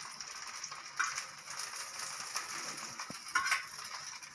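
Adai batter frying on a hot tawa with a steady sizzle as oil is spooned around it. Two light clinks sound about a second in and again about three and a half seconds in.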